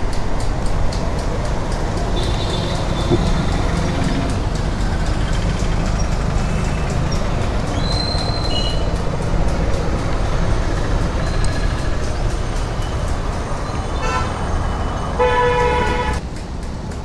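Steady roadside traffic rumble, with a vehicle horn honking for about a second near the end.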